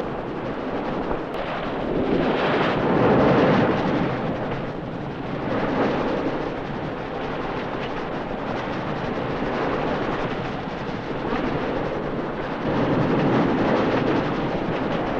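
Wind and rushing sea water on a racing sailing yacht driving through heavy seas, a loud steady rush that swells in surges as waves break along the hull.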